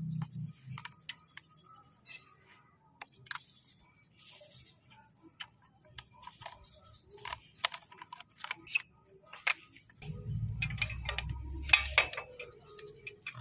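Irregular small clicks and ticks of a thin metal hand tool working a screw and plastic trim cover on a motorcycle. About ten seconds in comes a louder two-second stretch of low rumble and clustered knocks as a steel crash bar is handled against the frame.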